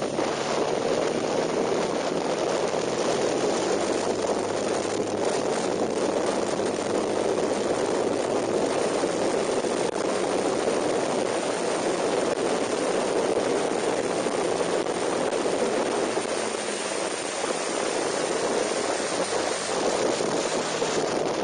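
Steady wind rush over a handlebar-mounted camera at track speed, with the KTM 990 Super Duke's V-twin engine running underneath it under way.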